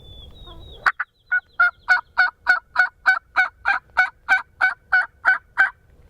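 A long, even series of turkey yelps, about three notes a second, some fifteen in a row, starting about a second in and stopping near the end.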